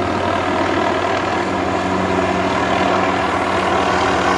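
Tree-trimming helicopter running close by, its rotor and engine making a steady, really loud noise with a low hum.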